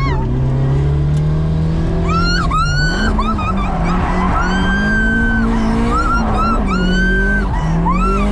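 Drift car's engine revving and falling back, heard from inside the cabin, with the tyres squealing in several drawn-out screeches from about two seconds in as the car slides through warm-up drifts.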